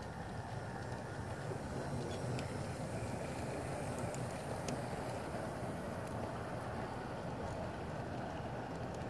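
Large-scale garden railway train rolling past on its track, a diesel locomotive hauling a line of cars: a steady rumble of wheels on rail, with a few light clicks about four to five seconds in.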